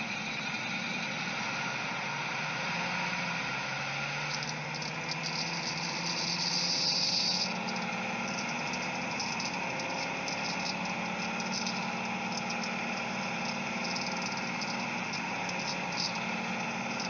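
Ford V10 engine running with a fast, light rattling tick from its six-rib serpentine belt flapping and twisting between the alternator and power steering pulleys. It sounds like spark knock or pinging, but it is belt flap, which an added idler pulley cures. The rattle is loudest for a moment around the middle.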